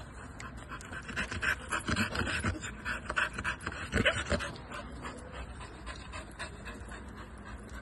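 A dog panting in quick, rhythmic breaths, louder in the first half and fading toward the end.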